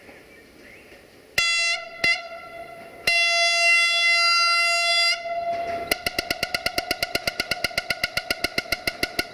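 Train horn sounding two short toots and then one long blast of about two seconds. It is followed by a rapid pulsing tone at much the same pitch, about nine pulses a second.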